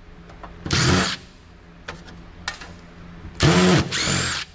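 DeWalt Atomic compact cordless driver spinning out the screws that hold PCI cards in a steel computer case: a short whir about a second in, then a longer run of about a second near the end. A few small clicks come in between.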